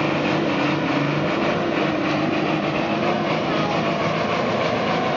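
Engine of a vehicle stuck in deep mud running hard at fairly steady revs, wavering slightly, as it tries to pull free, with people's voices around it.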